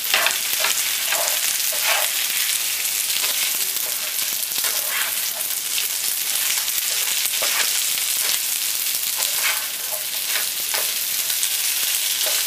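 Wide rice noodles, beef and broccoli sizzling in a frying pan, with a steady hiss, as a spatula stirs and scrapes through them in short strokes at irregular moments.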